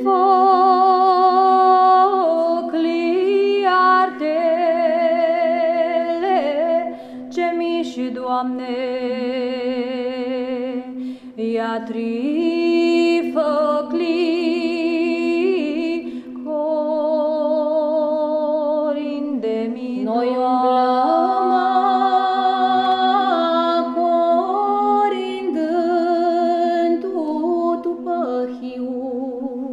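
Women's psaltic choir singing a Romanian Christmas carol a cappella: a moving melody in phrases over a steady held drone note (the ison), which carries on through the short pauses between phrases.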